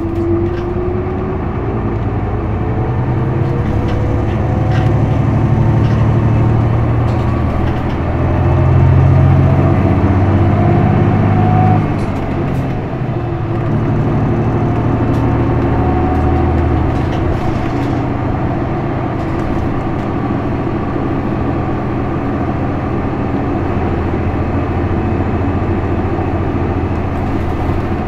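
Isuzu Erga PJ-LV234L1 city bus's diesel engine and drivetrain, heard from inside the bus while it drives. A thin whine climbs as the bus gathers speed over the first ten seconds or so. About twelve seconds in the engine sound dips and breaks, as at a gear change on its manual gearbox, then runs on steadily.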